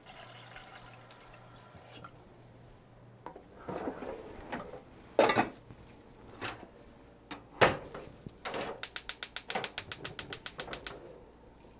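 Tap water running into a small saucepan, then a few knocks as the pot is handled and set down on the gas hob. Near the end the gas stove's igniter clicks rapidly, about eight to nine clicks a second for roughly two seconds.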